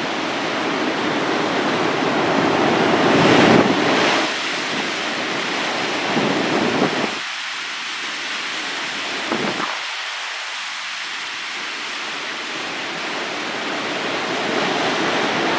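Heavy Atlantic surf breaking and washing up the shore, a steady rush of water with the biggest wave swelling about three and a half seconds in and smaller surges twice more later.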